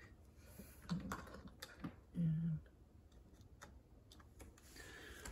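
Quiet, scattered clicks and taps of a USB card reader being fitted into a laptop's USB port while hands rest on the keyboard. A short low hum comes about two seconds in.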